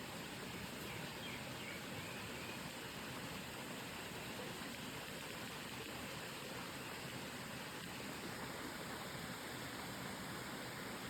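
Steady rushing of a mountain valley stream.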